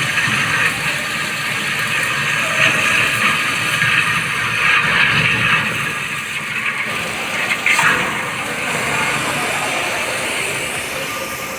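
CNC plate-drilling machine at work, a steady rushing, water-like noise with a sharp click about eight seconds in.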